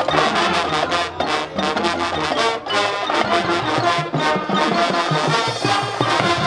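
High school marching band playing, brass and drumline together with a steady beat.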